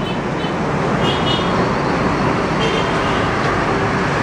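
Steady noise of busy city road traffic, many vehicles' engines and tyres blending into one even sound from the road below. A few brief, faint high squeaks sound over it.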